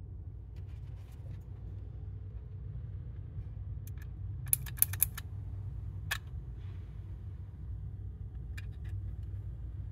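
3D-printed plastic shell parts being handled and fitted together by hand: scattered light clicks and knocks, with a quick run of about five sharp clicks around the middle and another single click a second later, over a steady low hum.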